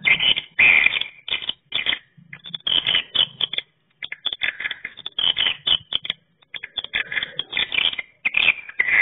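Swiftlet calls, as used to lure swiftlets from a rooftop tweeter: rapid dry chirps and twitters in dense clusters, with short pauses between bursts.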